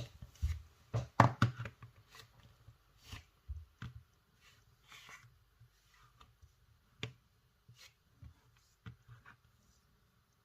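Hands and sculpting tools handling plasticine on a tabletop: irregular light taps, clicks and rubbing, with a cluster of louder knocks in the first couple of seconds.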